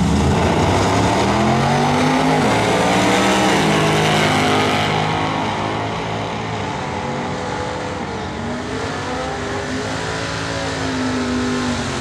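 Two drag-racing cars, a 1967 Pontiac Firebird and its opponent, launching at full throttle and accelerating down the strip. The engine note climbs through each gear and drops back at the shifts several times, and grows fainter as the cars pull away.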